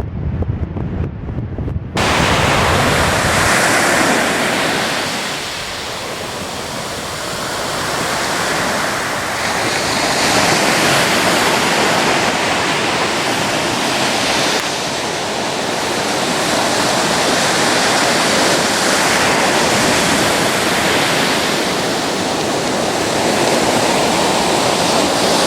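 Wind rumbling on the microphone for about two seconds, then the steady noise of ocean surf, waves breaking and washing in slow swells that rise and fall.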